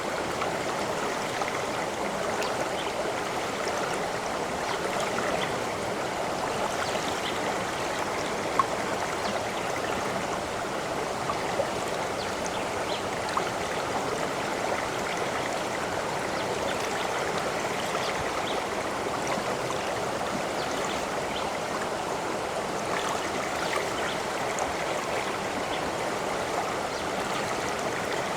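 Stream water running steadily, with a single brief, louder splash about eight and a half seconds in.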